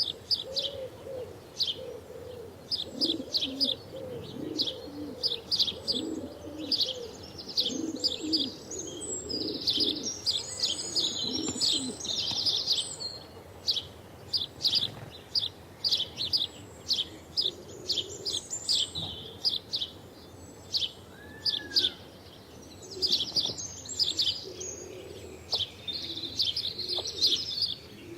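House sparrows chirping: a steady run of short, repeated chirps, sometimes bunched into rapid chattering. Lower cooing calls sound underneath, most through the first half and again in short spells later.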